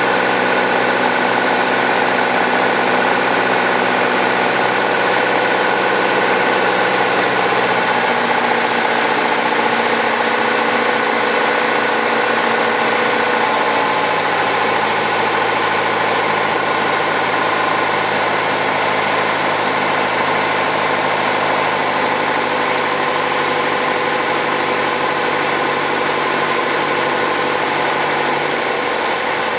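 Piston engine and propeller of a single-engine light aircraft heard from inside the cabin, a loud steady drone. Its pitch steps down several times as power is brought back on final approach, and settles lower near the end as the plane rolls out on the runway after touchdown.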